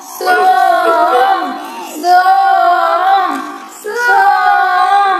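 Background music: a song with a high, child-like singing voice in long held phrases with short breaks between them.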